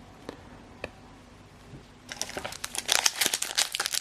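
Two light taps, then from about halfway a dense crinkling of a foil booster-pack wrapper being handled.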